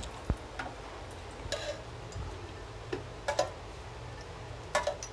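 Steel spoon clinking against a steel container and kadai while ghee is scooped into the hot pan: a handful of short metallic clicks and taps, irregularly spaced, a couple of them in quick pairs.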